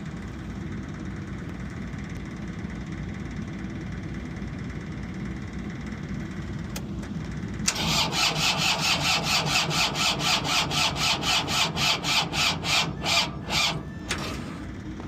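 Cold pony motor being cranked over by its starter for about six seconds, a rhythmic rasping chug about four to five strokes a second, that stops without the engine catching. Under it, and alone for the first half, a steady low engine rumble.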